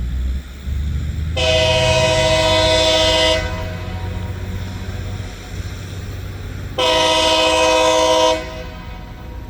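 Loram rail grinder's multi-chime air horn sounding two long blasts, the first about two seconds and the second about a second and a half, over the low steady rumble of the grinder's engines.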